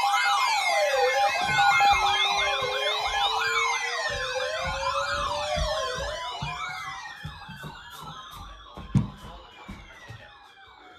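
Several electronic emergency-vehicle sirens sounding at once, slow wails and fast yelps overlapping at different pitches, fading away over the second half. A sharp click comes about nine seconds in.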